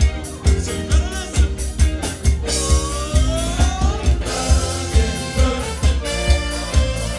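Live band playing disco music with singing. A steady kick-drum beat comes about twice a second under electric guitar, saxophones and keyboards.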